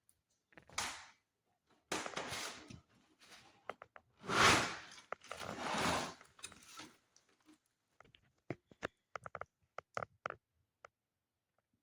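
Rustling and handling noises, the loudest about halfway through, followed by a run of short sharp clicks and taps.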